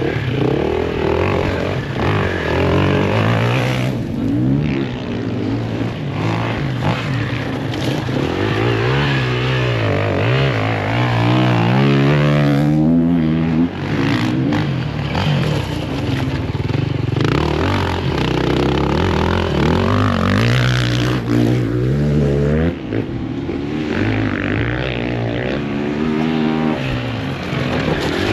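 Enduro dirt-bike engines revving, the pitch rising and falling again and again as they accelerate and shift gears.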